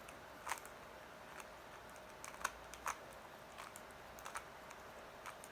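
Rubik's Cube being turned with one hand in the final moves of a solve: faint, irregular plastic clicks as its layers snap round, sometimes several in quick succession.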